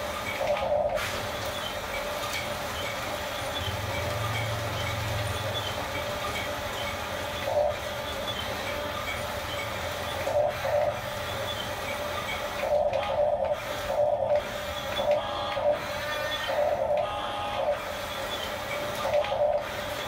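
Electric drive motors and gearboxes of a Huina 1569 RC toy bulldozer whirring in short bursts as it is nudged back and forth on its tracks. The bursts come about ten times, more often in the second half, over a steady whirring hum.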